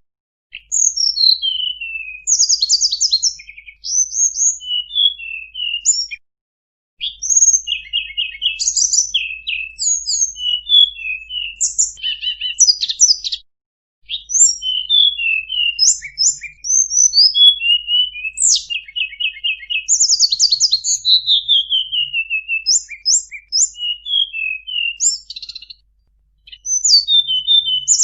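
Tledekan gunung songbird singing a fast, varied song of chirps, rapid trills and descending runs of whistled notes. The phrases are broken by short pauses about a quarter of the way in, around halfway and near the end.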